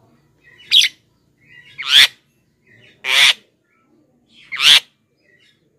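Javan myna (white-vented myna) calling: four loud, short calls about a second and a half apart, each led in by a fainter note.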